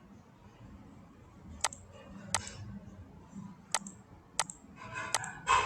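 Several sharp, irregularly spaced clicks at a computer, starting a second and a half in, over a faint steady hum.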